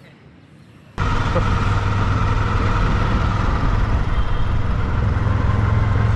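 Auto-rickshaw (tuk-tuk) engine running steadily with road noise while riding in it. It starts abruptly about a second in after a quiet stretch.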